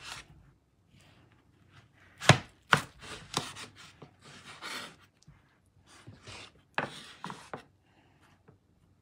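Chef's knife slicing through cantaloupe flesh and rind onto a wooden cutting board. Two runs of sharp knocks as the blade meets the board, one about two seconds in and one near seven seconds, with softer slicing sounds between.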